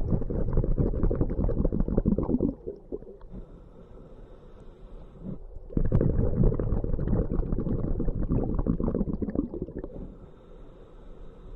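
Scuba diver breathing through a regulator underwater: long bubbling exhalations, twice, each followed by a quieter inhalation with a faint thin hiss from the regulator.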